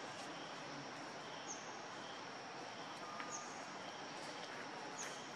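Steady outdoor background noise with a thin, steady high tone, and a short high chirp that repeats three times, about every two seconds.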